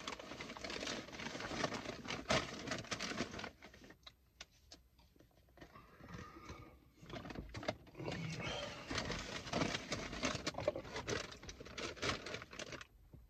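Rustling and crinkling of paper food wrappers being handled, with scattered clicks. A quieter pause comes about halfway through.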